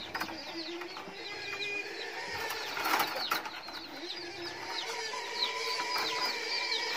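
Birds chirping rapidly, a steady stream of short high falling chirps with a few held notes beneath. Now and then bamboo strips click and rustle as a basket is woven.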